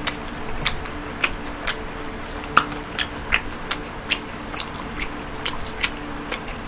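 Close-up chewing with wet mouth clicks and smacks while eating cold soy-milk noodles, a sharp click about every half second at an uneven pace.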